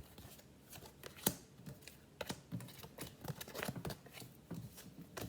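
Tarot cards being handled and laid on a table: a run of light, irregular taps and clicks, the sharpest about a second in.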